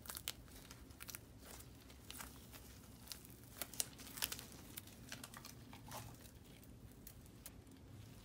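Silicone mold being flexed and peeled off a cured resin casting by gloved hands: irregular crackles and clicks as the rubber pulls away from the resin, loudest about four seconds in.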